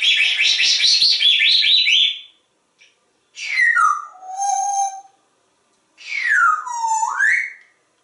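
African grey parrot vocalising: a rapid raspy chatter for about two seconds, then two whistles, one falling and settling on a steady note, the other swooping down and back up.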